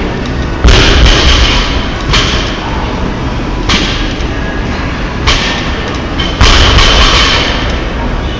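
Loaded barbells set down on a rubber gym floor during deadlift reps: about five heavy thuds, roughly a second and a half apart, each trailing off over about a second.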